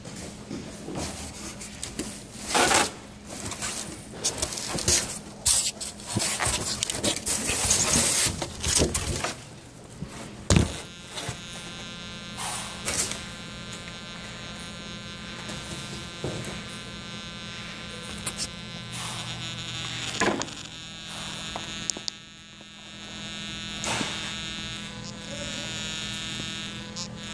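Rubbing, scraping and knocks of the camera being handled, then from about eleven seconds in a steady high electric buzz with many overtones that wavers slightly near the end, over a low steady hum.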